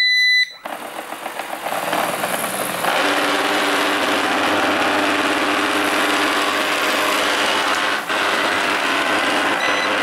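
Eufy RoboVac robot vacuum beeping once as it is switched on, then its motors spinning up over a couple of seconds into a steady, very noisy whirr. The noise comes from a faulty main roller brush, which the owner suspects is off balance or stiff.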